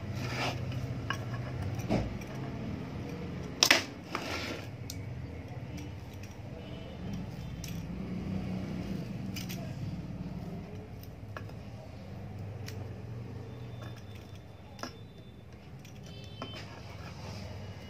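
Small metal clicks and clinks of an electric iron's thermostat bracket and wire terminals being worked loose by hand, a few separate clicks with the loudest pair a little under 4 seconds in. A low steady hum runs underneath.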